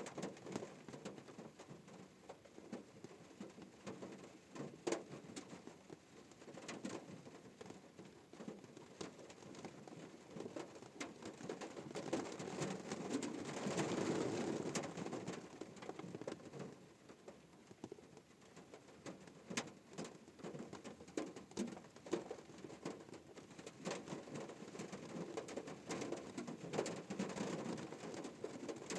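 Rain falling on a car's roof and windscreen, heard from inside the car: a dense patter of drops with sharper single hits, growing heavier for a few seconds near the middle.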